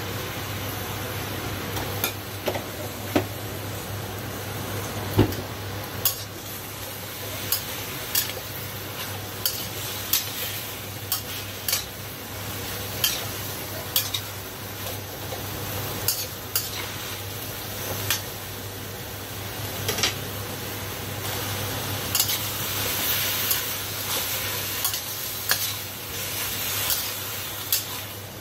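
Cabbage and pork belly sizzling in a wok as a spatula stirs and tosses them, scraping and knocking against the pan about once a second.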